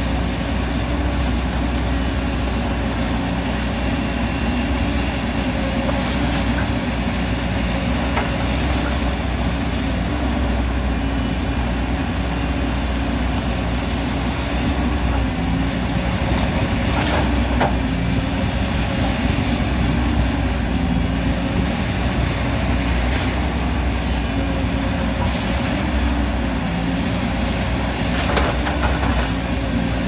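Diesel engine of a JCB tracked excavator running steadily as it digs and loads earth into a dump truck, with a few faint knocks scattered through.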